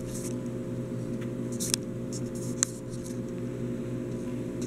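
A steady background hum with three brief, faint crackles of plastic binder sleeves being handled.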